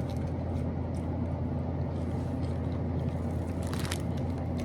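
Steady low machine hum, as of a running fan or appliance, with a short rustle about four seconds in.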